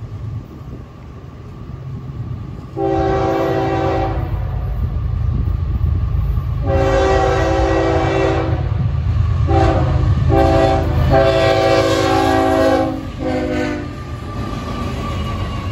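Florida East Coast Railway GE ES44C4 freight locomotive sounding its multi-note air horn for a grade crossing: a long blast about three seconds in, a second long one, then a run of shorter blasts around a final long one. Under the horn, the rumble of the approaching train grows.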